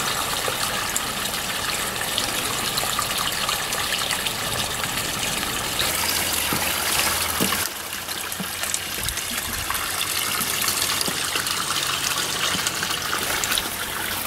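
Pond water pouring from a tipped urn spout into the pond, a steady splashing gush. This is the pump's return flow.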